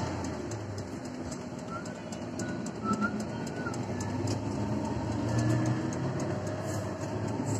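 Intercity coach bus engine running with road noise, heard from inside the cabin as the bus moves off along the highway. A few faint short high tones sound about two to three seconds in.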